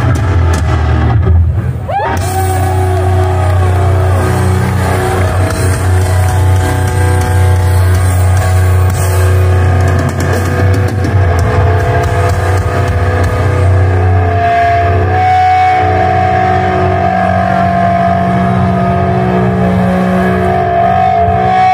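A live heavy metal band's amplified electric guitars and bass hold a loud, sustained droning chord with long ringing notes, with a falling guitar slide about two seconds in.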